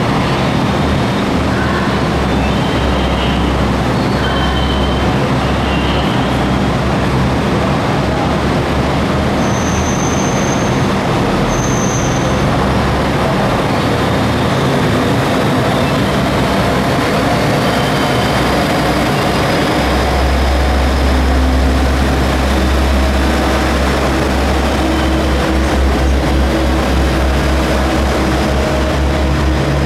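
Two-car KiHa 40-series diesel railcar train (KiHa 47 and KiHa 40) idling at the platform with a steady diesel engine sound; about twenty seconds in the engines are throttled up and a deeper, louder engine note carries on as the train pulls away and the cars move past.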